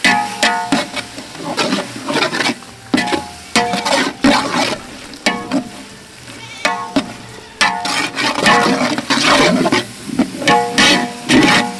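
Long steel ladle stirring and scraping through thick wet masala in a large metal pot. The ladle knocks the pot wall with each stroke, about once a second, and the pot rings briefly each time.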